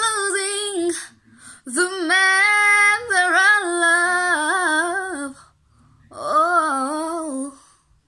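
A woman singing unaccompanied in three drawn-out phrases with short breaths between, her pitch sliding and wavering through runs.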